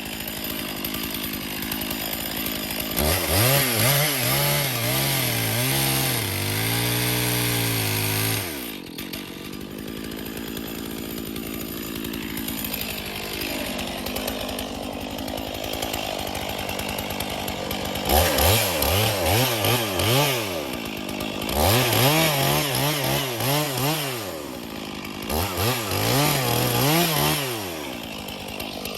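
Stihl two-stroke chainsaw idling, then throttled up four times, a long burst early and three shorter ones near the end, its pitch sagging and wavering at full throttle as the chain bites into the wood.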